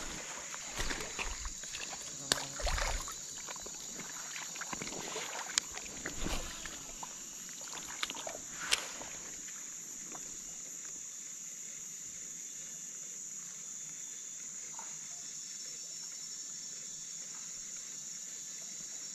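Steady high-pitched drone of insects in the surrounding rainforest. A few sharp clicks and short rustles come in the first half, then only the drone.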